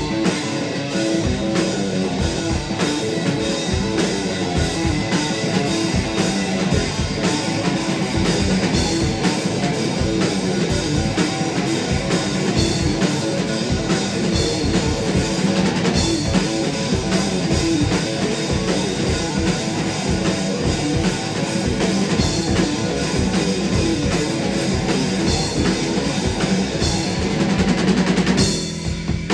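Rock band playing loud, with a driving drum kit and electric guitar. The music drops away abruptly at the very end.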